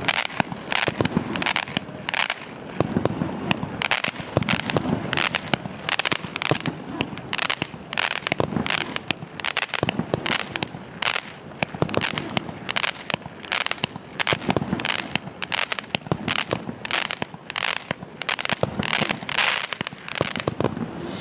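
Machine Made Pyro Pulse, a 36-shot 200-gram consumer fireworks cake, firing its shots in a steady rapid string of sharp reports, about two a second.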